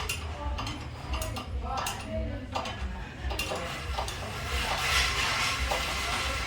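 Metal tools and parts clinking and clanking in irregular sharp clicks during car brake work, over a steady low hum.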